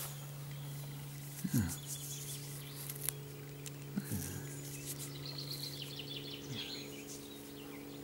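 A small bird singing a quick run of high chirping notes about five seconds in, over rustling of grass and plants being handled and a steady low hum. Two short low sounds falling in pitch, about one and a half and four seconds in, are the loudest moments.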